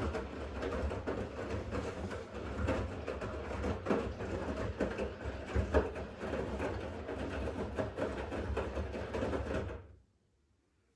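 Siemens washing machine in a Cotton 60 Speed wash, its drum turning with laundry tumbling and water sloshing over a steady motor hum and irregular soft thumps. The sound stops abruptly about ten seconds in.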